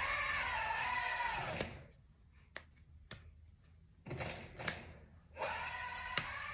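Backing music: a long wordless chanted vocal note that sags and then rises, heard twice, with a few sharp clicks in the pause between.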